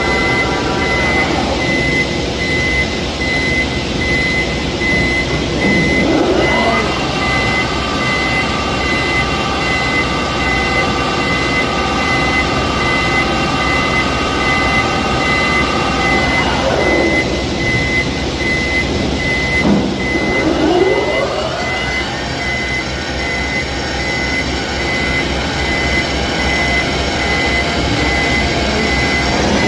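Kuraki KBT 13EBH CNC horizontal boring machine running under power: a pitched drive whine falls away and climbs back up several times as the machine slows and speeds up. A high beep repeats evenly throughout.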